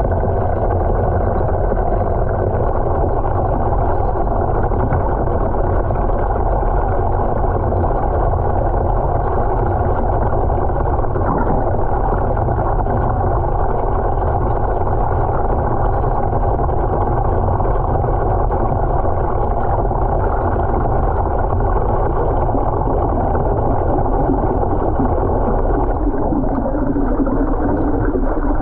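Steady, loud churning and rumbling of water swirling in a vortex tank, with a low hum underneath and a slight shift in tone near the end.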